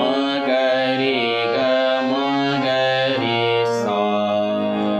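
Harmonium playing a note pattern over held chords: low notes sustained while the upper notes step from one to the next about every half second.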